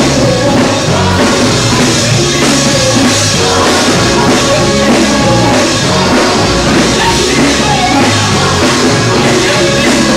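Loud live gospel praise music: a band with a drum kit playing steadily, with a woman singing over it through the church sound system.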